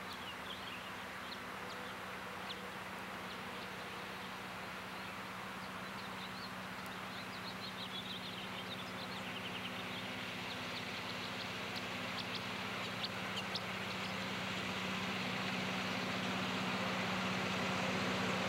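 Southern Pacific diesel locomotive approaching, its engine drone growing steadily louder. Birds chirp over it, mostly in the first half.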